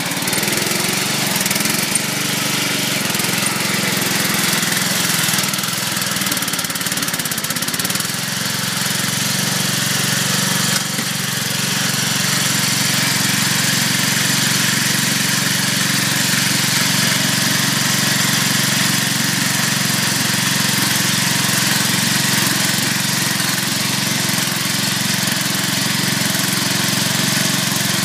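Modified riding lawn mower's small engine running steadily under throttle, stuck in a snowbank with its open differential unable to get traction.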